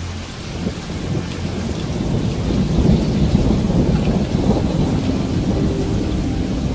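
A long roll of thunder over steady rain. It swells about half a second in, is loudest in the middle, then eases, and a faint held music tone comes back in near the end.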